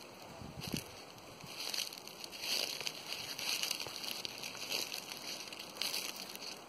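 Footsteps crunching through a thick layer of dry fallen leaves, an irregular crackle about once a second, with a few dull thuds near the start.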